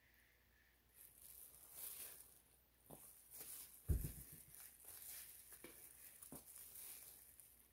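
Faint crinkling and rustling of a plastic glove as a plastic squeeze bottle of acrylic paint is handled, with a dull thud about four seconds in as the bottle is set down on the table. A few lighter knocks follow.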